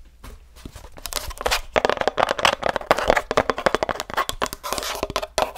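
Fingers scratching and tapping quickly on a Blue Yeti microphone's mesh grille, a dense crackly scratching that starts about a second in.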